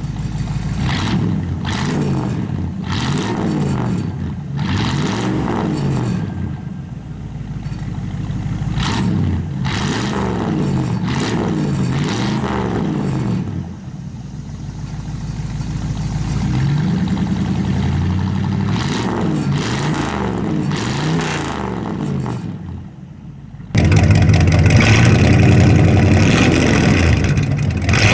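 Ford LTD's engine revved again and again through its exhaust, the pitch climbing and falling with each blip of the throttle. About three-quarters of the way through it cuts abruptly to a louder, steadier run of the engine.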